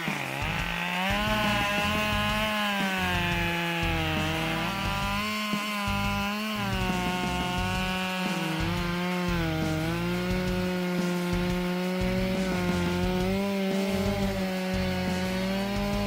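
Husqvarna 572 XP two-stroke chainsaw running at high revs while cutting through dry wood. Its pitch sags and recovers again and again as the chain loads up in the cut.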